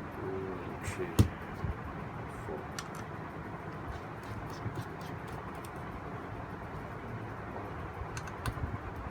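Scattered small clicks and taps of a screwdriver and metal parts being handled while a graphics card's back plate is unscrewed, over a steady hiss. The sharpest click comes about a second in, with a few more near the end.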